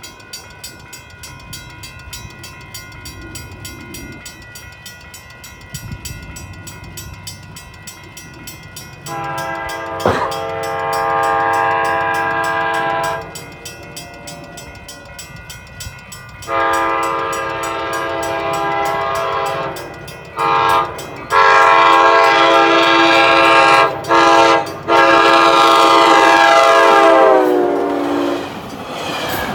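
Railroad crossing bell ringing steadily as an ACE commuter train approaches and sounds its air horn for the grade crossing in a series of long and short blasts. The horn's pitch drops as the train reaches the crossing near the end, and the rumble of the passing cars takes over.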